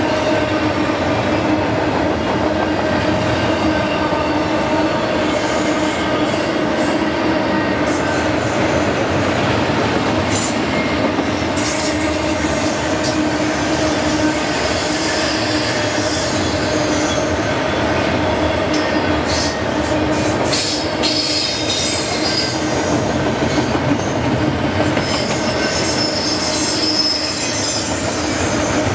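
Loaded double-stack intermodal well cars rolling past, steel wheels on rail making a loud, steady rumble with a constant hum. Brief high-pitched wheel squeals come and go throughout.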